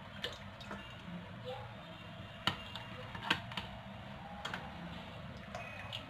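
A few scattered light, sharp clicks and taps, about five in all, over a faint steady background hum.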